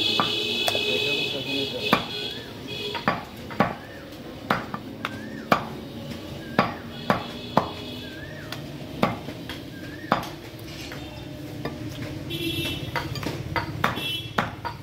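Large butcher's knife cutting and knocking on a wooden chopping block as beef is trimmed off the bone: irregular sharp knocks, about one or two a second. A high chirping sound comes in near the start and again near the end.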